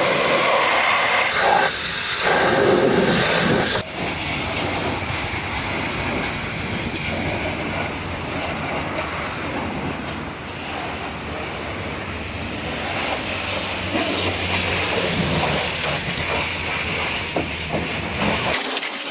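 Pressure washer spray hissing steadily as it blasts mud off a truck, with an abrupt change in the spray's sound about four seconds in.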